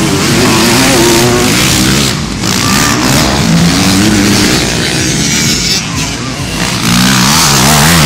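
Several motocross motorcycle engines revving hard and overlapping, their pitch rising and falling as the riders open and close the throttle and shift, with a brief softer stretch just past the middle.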